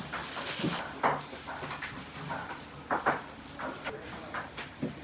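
Kitchen background with faint voices and a few short knocks or clatter, the loudest about a second in and about three seconds in. A hiss stops just under a second in.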